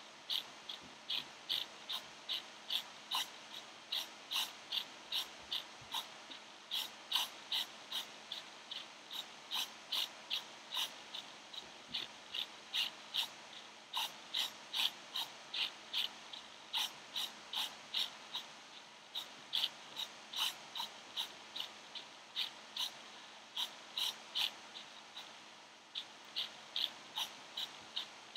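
Small hobby servo motors of a homemade pan-tilt laser toy buzzing in short bursts, about two a second and unevenly spaced, as they jerk the laser dot to new positions.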